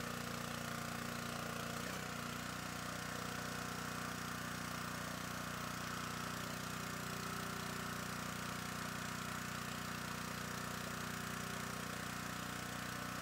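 Small gas engine of a Champion log splitter running steadily at idle.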